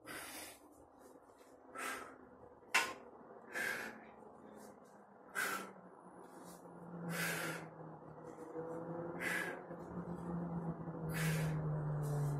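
A man breathing hard through a dumbbell shoulder exercise, with a short forceful exhale about every two seconds in time with the lifts. There is one sharp click about three seconds in, and a low steady hum builds in the second half.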